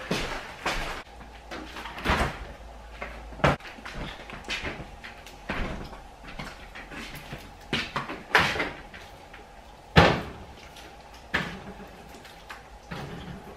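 Irregular knocks, clunks and crinkles as a shrink-wrapped case of plastic water bottles is unpacked and the bottles are stacked into a refrigerator, with door thumps among them; the sharpest knock comes about ten seconds in.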